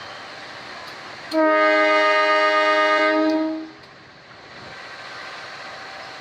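Train horn sounding one long blast of about two and a half seconds, starting a little over a second in. It plays as a steady chord of several tones over a constant rushing background.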